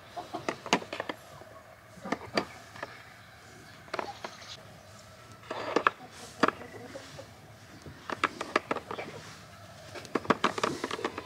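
Hen eggs clicking against one another and against a plastic bowl as they are picked up and set in, in scattered clusters of light taps.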